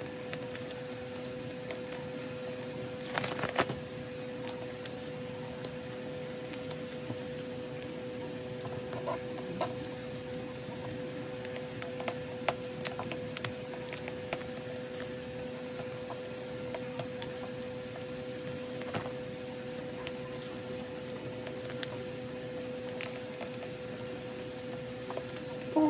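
Photocards being handled and slid into plastic binder sleeves: soft rustles and light plastic clicks, with a small cluster about three seconds in, over a steady electrical hum.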